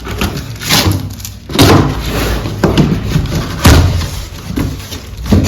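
A series of dull, bass-heavy thumps, about one a second.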